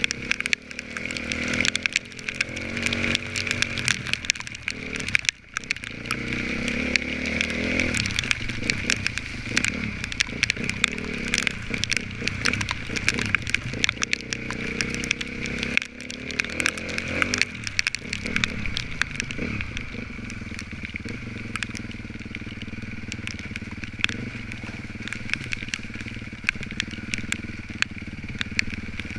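Off-road racing motorcycle engine revving up and down through the gears on a muddy course, settling into steadier running in the second half, with many small clicks and knocks over it.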